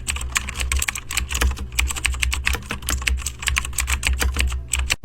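Rapid, irregular clicking of typing on a computer keyboard, over a low steady hum.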